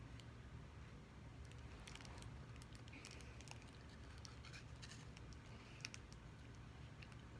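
Near silence: room tone with a low hum and a few faint, scattered small clicks.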